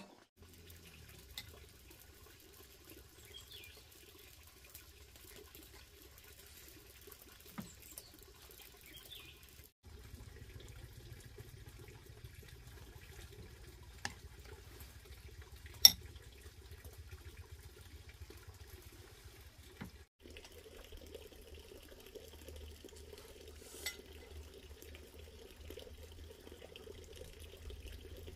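Occasional light clicks of a metal spoon against a ceramic bowl as meat filling is scooped onto cabbage leaves, one sharp click standing out about sixteen seconds in, over a faint steady hiss.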